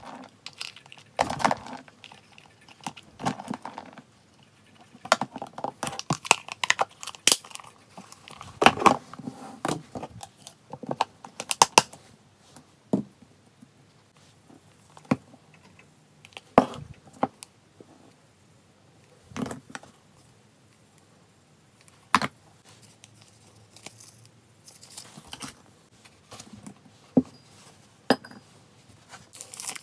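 Handling sounds: a run of sharp clicks, clatters and rattles from plastic food containers, dry kibble and ceramic bowls, with some crinkling of packaging. The sounds are busiest in the first half, with longer pauses between single clicks later.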